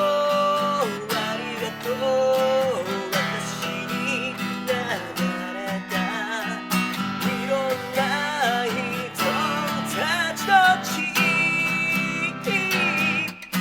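Acoustic guitar strummed steadily under a solo singing voice, a one-person guitar-and-vocal song performance.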